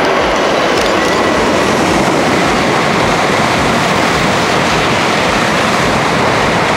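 Tokaido Shinkansen train passing through the station at high speed without stopping: a loud, steady rushing noise of air and wheels.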